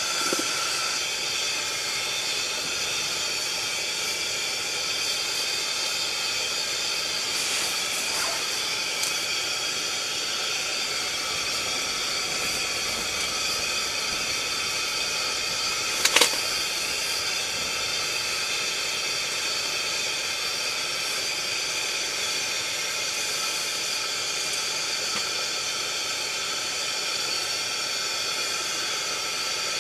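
Steady hiss of a pressure lantern burning beside the fishing hole, constant throughout. A short sharp click sounds once, about sixteen seconds in.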